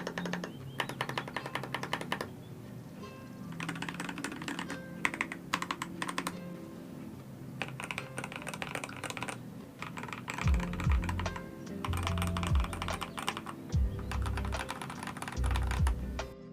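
Typing on a Yunzii VN66 65% mechanical keyboard: quick runs of clacking keystrokes broken by short pauses, with background music whose bass comes in about two thirds of the way through.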